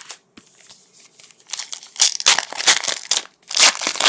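A trading card pack wrapper being crinkled and torn open, the crackling growing louder about a second and a half in.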